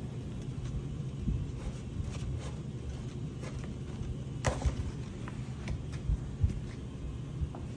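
Pruning shears cutting a fiddle leaf fig's woody stem: faint clicks and one sharper snip about four and a half seconds in, over a low rumble of handling noise.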